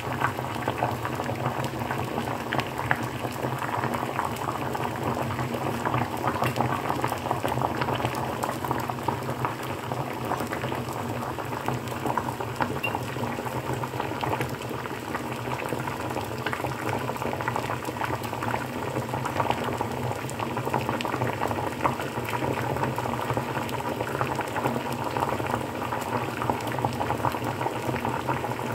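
Water boiling in a pot of eggs, bubbling steadily with a dense crackle of small pops.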